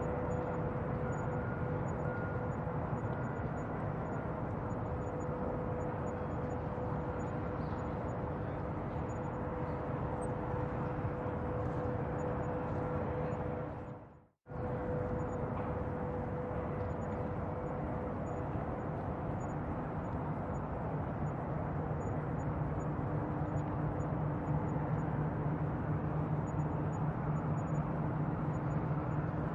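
Bayside ambience: a steady low rumble with a constant droning hum running through it. About halfway through it fades down to silence for a moment, then comes straight back.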